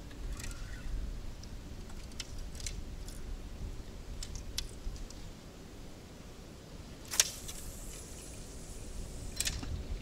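Small clicks and rattles of a feeder rod and spinning reel being handled, then the sharp snap of an overhead cast about seven seconds in, the loudest sound, with a fainter hiss trailing off after it and another click near the end.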